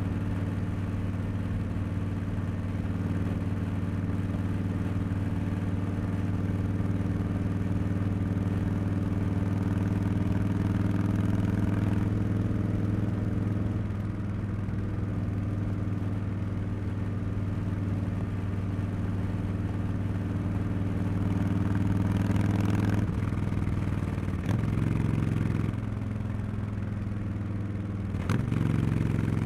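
2024 Harley-Davidson Street Bob 114's Milwaukee-Eight V-twin running under way through a Cobra Neighbor Hater slip-on exhaust. The engine holds a steady note for much of the time, then the note shifts and dips a few times in the second half as the revs change.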